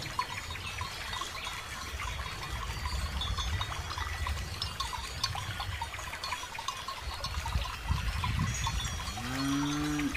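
Cattle bells on grazing cows tinkling irregularly over a low rumble of wind on the microphone. A cow moos once near the end, a call that rises and then holds.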